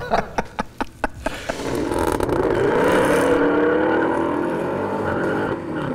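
Three supercharged V8 muscle cars, a Shelby GT500, a Challenger Hellcat Redeye and a Camaro ZL1, accelerating hard side by side in a drag race. Their engine notes come in loud about a second and a half in and rise in pitch as they pull away.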